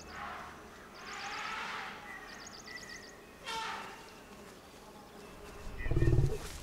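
Insects chirping in short, high, repeated trills, with swishes of rustling between them. About six seconds in comes a brief loud low rumble, the loudest sound here.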